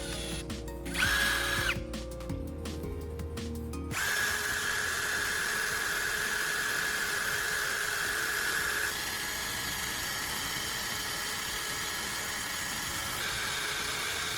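A small power tool running steadily for about ten seconds, its whine stepping slightly lower about halfway through, after a brief short run about a second in. Background music plays at the start.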